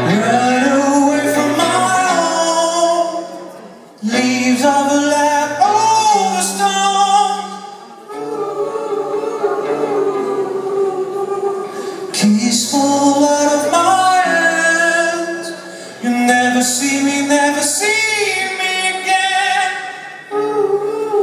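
Live performance: a man singing into a microphone to his own acoustic guitar, in sung phrases of about four seconds each.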